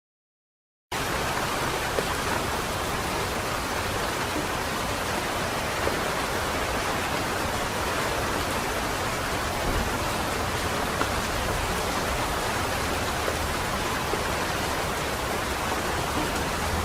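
Steady light rain falling, an even hiss with an occasional single drop tick. It cuts in abruptly about a second in.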